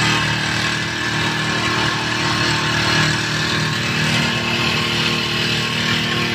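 Small four-stroke engine of a backpack power sprayer running steadily at an even speed.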